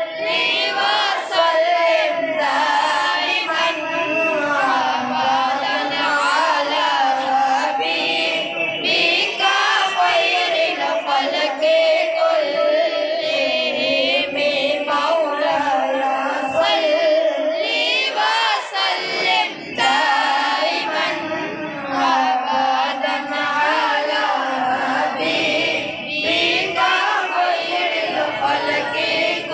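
Unaccompanied singing with a wavering, ornamented melody, without pause, no instruments or beat.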